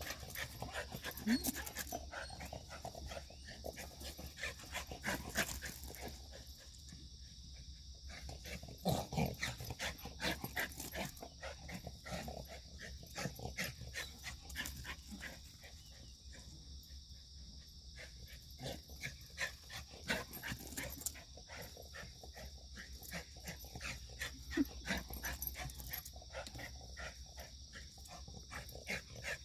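Shiba Inu dog in full-power play: many rapid clicks and scuffles with a few short low vocal sounds, over a steady high hiss.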